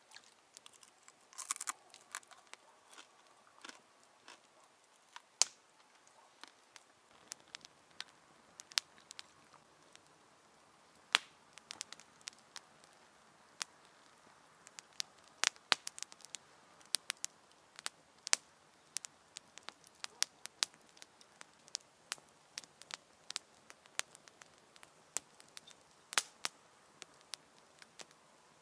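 Wood fire crackling, with irregular sharp pops and snaps, a few much louder than the rest.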